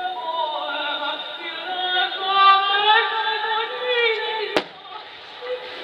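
Music with a singing voice carried over the loudspeakers for a fireworks show, in long, sliding held notes. A single firework burst bangs sharply about four and a half seconds in.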